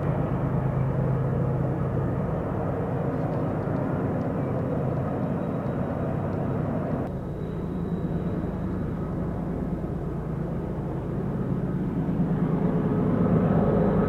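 Diesel locomotives of a distant empty Union Pacific coal train giving a steady low rumble. The rumble thins suddenly about seven seconds in and grows louder again near the end.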